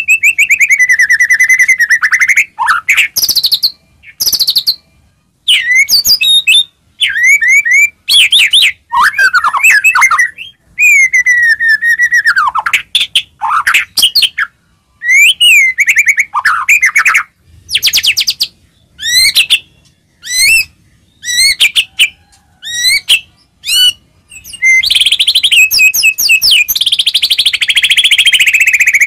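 White-rumped shama (murai batu) singing full-on in loud, varied phrases of clear whistles, slurred up-and-down glides and rapid trills, separated by short pauses. Near the end the song runs into a dense, unbroken stretch.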